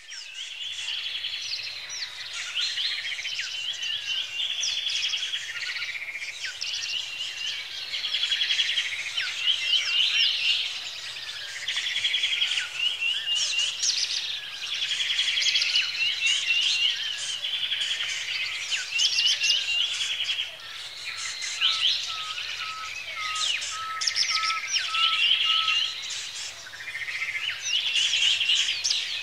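Several songbirds singing at once, a continuous chorus of rapid trills, chirps and rising and falling whistled notes.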